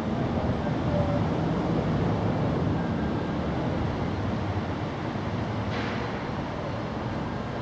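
Steady low rumbling background noise, with a brief hiss about six seconds in.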